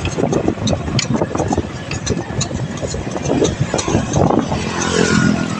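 Motor traffic passing close by on the road, with wind rumbling on the phone's microphone and scattered light ticks; a passing vehicle's engine hum comes through about five seconds in.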